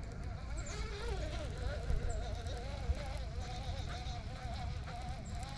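Baitcasting reel being cranked to retrieve a swimbait, a buzzing whir that starts about a second in and wavers in pitch with the turning of the handle, over a low rumble.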